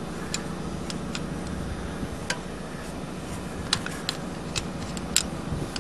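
Scattered light metallic clicks of a combination wrench on the cam chain tensioner lock bolt of a Honda XL250 engine, as the bolt is loosened to free the tensioner. Behind them is a steady low hum.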